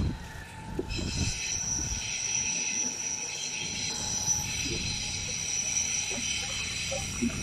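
Steel wheels of a Berlin S-Bahn train squealing on the rails: a steady high-pitched squeal of several tones at once that sets in about a second in and holds.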